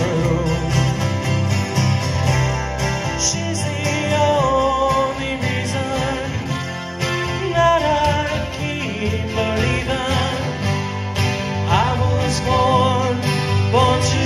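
Acoustic guitars playing live together: a wavering melody line over strummed chords and a steady low bass part.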